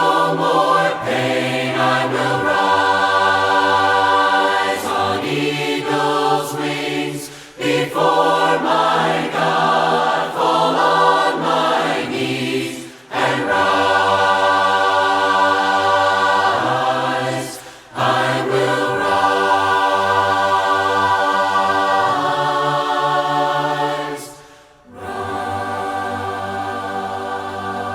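A group of voices singing a hymn a cappella, without instruments, in phrases with short breaks between them. The singing becomes softer near the end.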